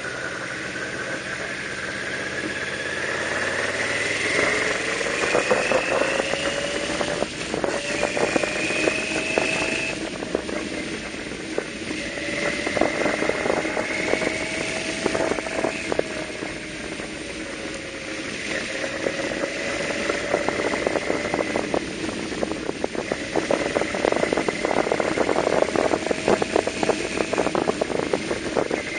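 Yamaha V-Max 1200's V4 engine running under way. It revs up over the first few seconds, then rises and falls gently with the throttle through the bends.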